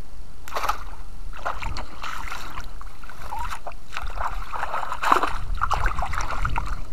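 Water splashing and sloshing in irregular bursts as a wire fish keeper with caught fish is moved about by hand in shallow water, busier near the end, over a steady low rumble.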